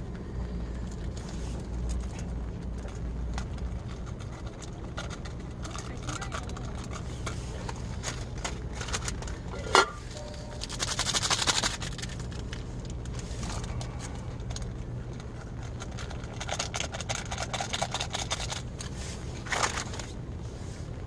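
Ramen seasoning packet crinkling and rustling as it is torn open and its soup powder shaken into the pot of noodles, with one loud click near the middle followed by a second of rustling. A steady low hum runs underneath.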